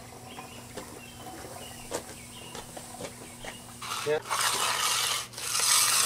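Faint bird chirps, then from about four seconds in, loud rasping strokes of a hand finishing tool scraping over fresh concrete, each about a second long with short gaps between.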